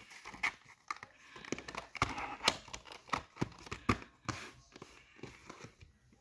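Paper insert rustling and a string of sharp plastic clicks and knocks as a VHS cassette and its insert go back into a plastic clamshell case and the case is shut, with a denser rustle about two seconds in.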